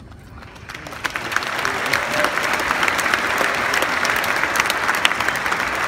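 Audience applauding, the clapping swelling from about a second in and then holding steady.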